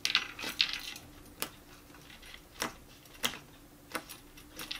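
A charm bracelet on a wrist knocking against a tabletop as hands knead slime: about seven sharp, irregular clicks and jingles.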